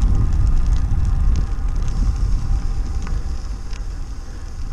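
Wind rushing over the microphone while cycling, a steady low rumble that eases off over the last couple of seconds.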